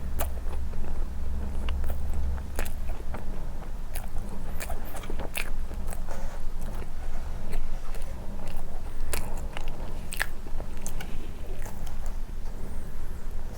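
Close-miked chewing and biting of soft condensed-milk cream bread dipped in milk, with scattered sharp wet mouth clicks. A steady low rumble runs underneath and is stronger for the first couple of seconds.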